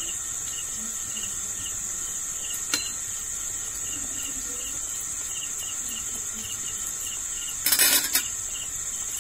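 A steady, high-pitched insect trill. A metal slotted spoon clinks once against the steel frying pan about three seconds in and clatters briefly near the end.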